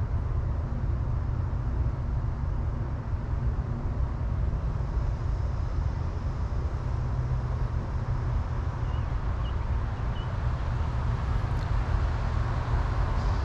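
Steady low rumble of outdoor background noise with an even hiss above it, unbroken by any distinct sound.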